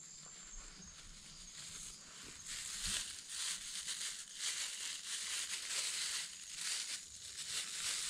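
Clear plastic bag crinkling and rustling in the hands as it is opened. It comes in irregular bursts that grow louder about two and a half seconds in.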